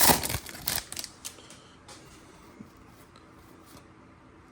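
Foil wrapper of a pack of Topps baseball cards crinkling and tearing as it is opened, loudest in the first second, then a few faint clicks of the cards being handled.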